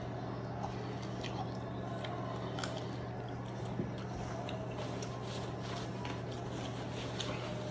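Faint chewing and small wet mouth clicks of a man eating a fried buffalo chicken wing, over a steady low hum. Near the end a paper towel rustles as he wipes his mouth and hands.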